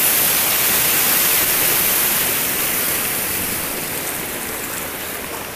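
Water rushing as it pours off a concrete drainage channel into a pond: a steady hiss that fades gradually over the last couple of seconds.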